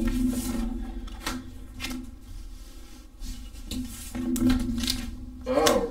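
Trading cards being picked up, slid and laid down on a playmat, with several sharp taps and flicks.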